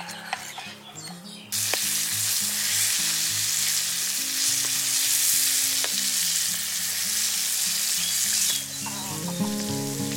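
Battered balut eggs deep-frying in hot oil: a loud, steady sizzle that cuts in suddenly about a second and a half in and drops away near the end.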